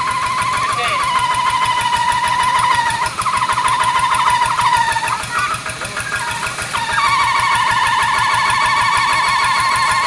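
Hand tractor's single-cylinder diesel engine chugging steadily under load as it churns through a muddy paddy field, with a high steady whine over it that breaks off several times around the middle and returns strongly about seven seconds in.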